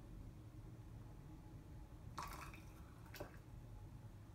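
Mostly quiet room tone. About two seconds in there is a brief soft brushing sound, and a second later a light click, as a small glass teacup holding water is moved and set down on the counter.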